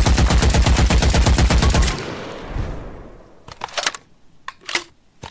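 Machine gun sound effect: a burst of rapid automatic fire, about a dozen shots a second, lasting about two seconds, with an echoing tail. A few separate sharp clicks follow near the end.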